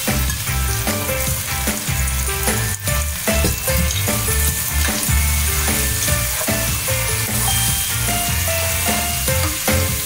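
Shrimp, sliced chicken sausage and onions sizzling as they fry in a pan and are stirred, with background music carrying a melody and a steady bass line.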